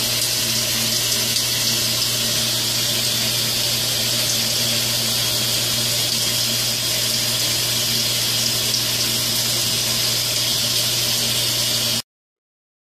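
Water running steadily: a constant hiss with a low hum beneath. It cuts off suddenly near the end.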